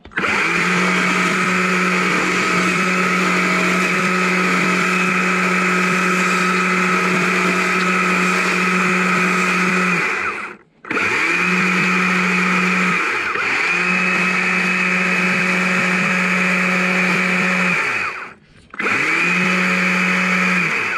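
Stihl electric chainsaw running at a steady high pitch while carving wood. It stops briefly about ten seconds in and again near the end, spinning back up each time.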